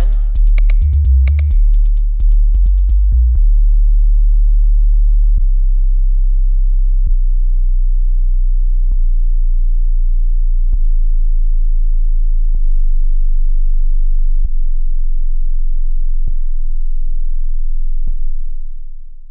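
Subwoofer test bass played loud through a loudspeaker: about three seconds of pulsing bass beats with sharp clicks, then one very deep steady sine tone with a faint tick about every two seconds, fading out near the end.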